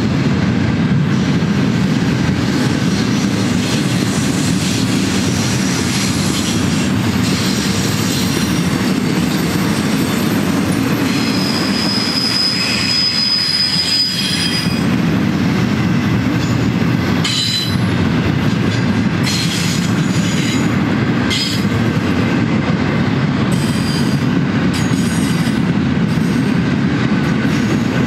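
Double-stack intermodal container well cars rolling past, with a steady rumble of steel wheels on rail. A thin high wheel squeal comes in about eleven seconds in and holds for some three seconds, and shorter squeals follow a few seconds later.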